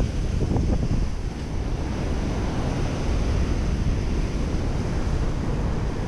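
Strong wind buffeting the microphone in uneven gusts, over the steady rush of breaking sea surf.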